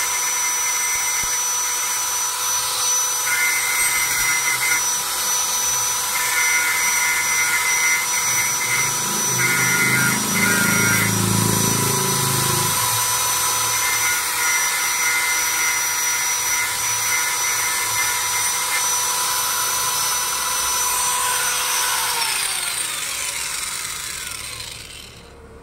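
Handheld angle grinder running at a steady whine, its disc grinding the steel cutting edge of an ID card cutter die in repeated short passes, sharpening it; a deeper rumble comes in for a few seconds near the middle. About 22 seconds in it is switched off and the whine falls away as the disc spins down.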